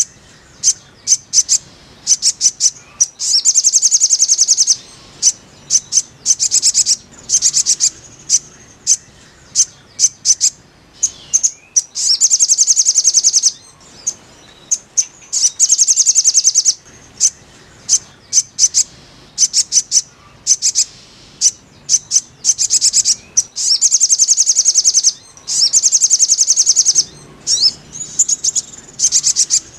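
Sogon (sogok ontong) bird song: rapid, high-pitched trills in bursts of about a second each, repeated again and again, with single sharp chips between. It is a therapy track played to coax a silent kept sogon into singing.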